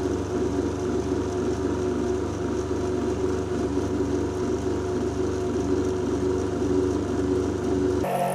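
Bench grinder running steadily with a constant motor hum while a single-point lathe tool bit is held against its grinding wheel. The sound changes abruptly near the end.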